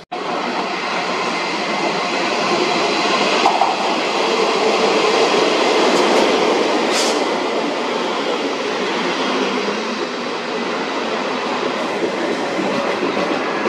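Taiwan Railway's Ming Ri Hao ('The Future') tourist train rolling into the station alongside the platform: a loud, steady rumble of the passing carriages and wheels on the rails. A short hiss cuts through about seven seconds in.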